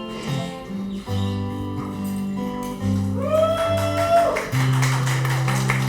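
Guitar playing the instrumental intro to a slow ballad: held chords that change about once a second, with one note that slides up and back down about halfway through.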